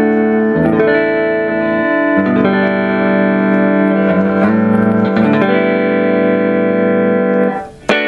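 Electric guitar through an amplifier, playing held notes and chords that change every second or two, then stopping shortly before a brief click near the end.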